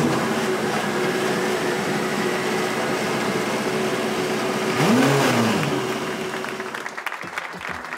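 BMW M8 GTE's P63/1 twin-turbo V8 race engine running just after its first start. One quick rev about five seconds in rises and falls in pitch and is the loudest moment. The engine then settles and fades near the end.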